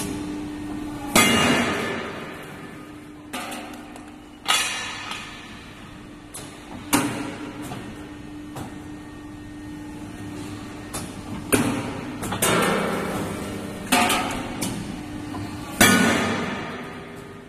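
Hydraulic CNC angle-steel punching and cutting machine at work: a steady hum from its hydraulic power unit, broken by about half a dozen loud, irregularly spaced metal bangs that ring on, with lighter clanks of steel angle in between.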